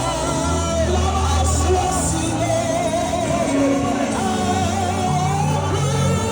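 Worship music with singing over sustained keyboard and bass, with occasional shouts in a large hall.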